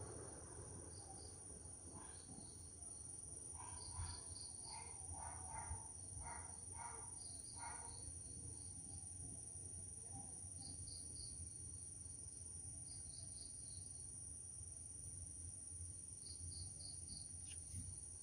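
Crickets chirping in short groups of three or four, over a faint steady low hum, with a brief run of about seven softer chirps a few seconds in.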